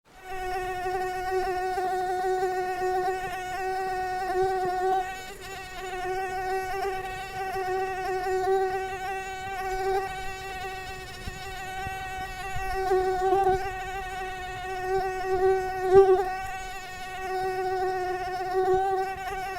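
Mosquito in flight: a continuous, steady-pitched wingbeat whine that wavers slightly and swells and fades in loudness as it moves about, loudest briefly about three-quarters of the way through.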